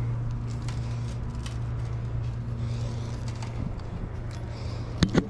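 A steady low engine drone, with a few sharp knocks near the end.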